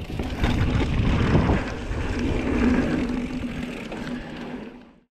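Mountain bike rolling fast over a sandy dirt trail: tyre rumble, rattling of the bike and wind buffeting the camera microphone, with a steady hum joining about two seconds in. The sound fades out just before the end.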